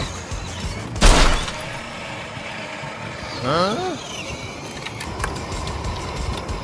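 Battery-powered ride-on toy Jeep driving on asphalt: a steady motor whine and the hum of its plastic wheels rolling. A loud, sudden burst comes about a second in, and a brief rising voice-like sound comes in the middle.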